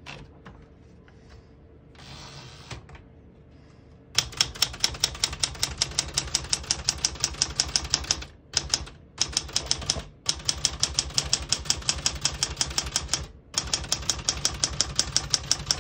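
Smith-Corona Classic 12 typewriter being typed on: a quick, even run of key strikes starting about four seconds in, broken by three short pauses.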